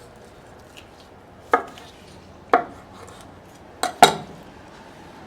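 Knife chopping down through smoked turkey onto a cutting board: four sharp knocks, about a second apart, with the last two close together and loudest near the end.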